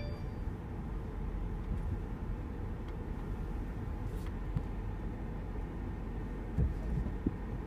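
Inside the cabin of a 2014 Mercedes-Benz SL550 rolling slowly: a steady low rumble of engine and tyres, with a few faint knocks near the end.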